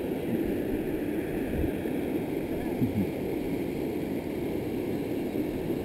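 Steady rush of river water pouring down a smooth rock chute into a pool.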